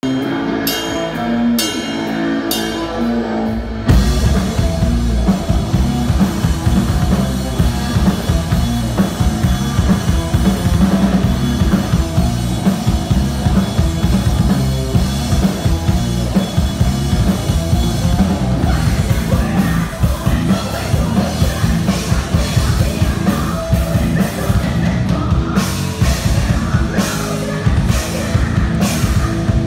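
Heavy metal band playing live with guitar and drum kit: a few separate staccato hits, then the full band comes in about four seconds in, breaking into stop-start hits again near the end.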